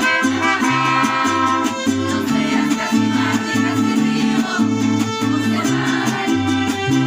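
Mariachi ensemble playing an instrumental passage: violins carry the melody over rhythmically strummed guitars and a plucked bass line.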